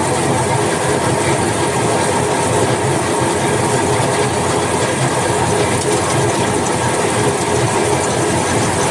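Workshop machinery running steadily: a dense, even mechanical rattle with a constant hum.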